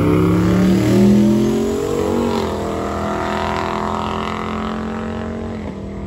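Drag cars, one of them a turbocharged Chevy S10 pickup, accelerating hard down the strip. The engine pitch climbs, dips briefly about two seconds in, then holds as the sound slowly fades with distance.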